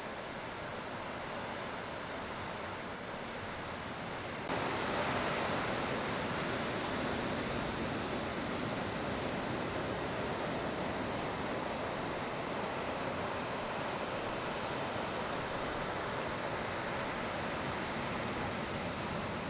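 Steady rushing wash of ocean surf breaking, which turns abruptly louder about four and a half seconds in and then holds steady.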